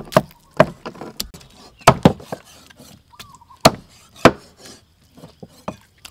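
Cleavers chopping raw chicken on wooden chopping boards: irregular sharp knocks of blades striking the boards, several choppers at once.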